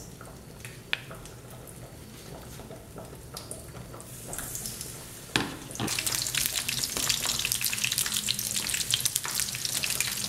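Egg-battered hake fillets frying in shallow oil in a pan: a dense crackling sizzle that starts a little past halfway. Before it, a few light clicks of a fork in the plastic batter bowl.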